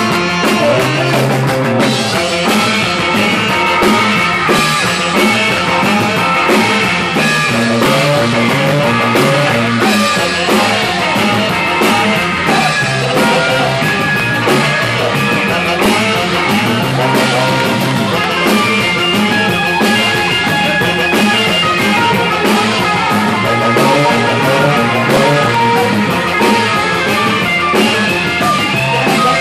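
Live rock and roll band playing: electric guitar, electric bass, saxophone and drum kit, with a steady drum beat.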